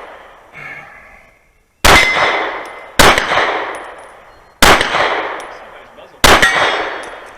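Four pistol shots at steel targets, spaced a second or so apart. Each shot is followed by a long ringing decay as the steel plate rings.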